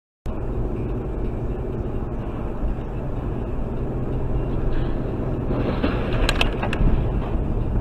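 Steady low rumble of road and engine noise from a moving car, as picked up by a dashcam. A few sharp clicks come about six and a half seconds in.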